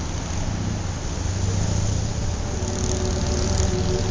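Auto-rickshaw engine idling with a steady low buzz. About two seconds in, a few steady higher tones join it.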